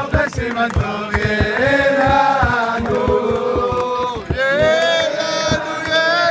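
A crowd singing a celebratory Hebrew song together in unison, with steady hand clapping about three claps a second.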